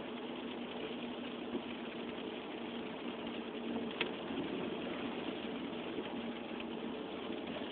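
Opel Vectra 3.2 V6 engine and road noise inside the cabin while driving in third gear: a steady drone, with a sharp click about four seconds in.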